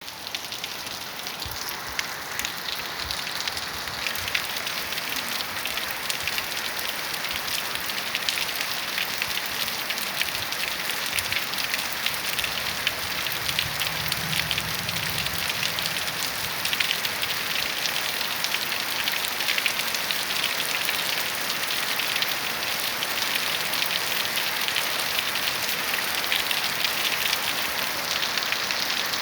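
Steady rain falling, with a dense patter of close drop impacts.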